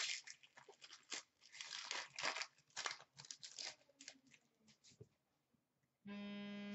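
Cardboard trading cards being flicked and shuffled through by hand, a run of quick papery flicks and taps over the first four seconds. About six seconds in, a steady buzzing tone starts and holds for over a second.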